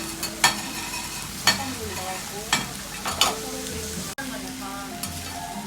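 Food sizzling on a hot iron teppan griddle, with a metal spatula clinking and scraping against the plate about four times.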